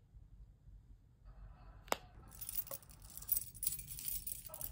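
Small hard objects being handled: a single sharp click about two seconds in, then light clinking and rustling that stops near the end.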